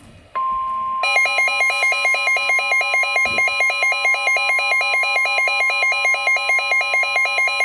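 Emergency Alert System attention tone announcing a severe thunderstorm warning. It begins as a steady high tone, and about a second in a loud warbling two-pitch alarm joins it, alternating about four times a second.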